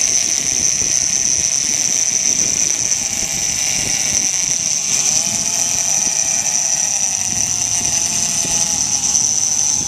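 Penn International 50 big-game reel's drag paying out line to a running blue marlin, a steady high whine. Under it runs the boat's steady engine noise.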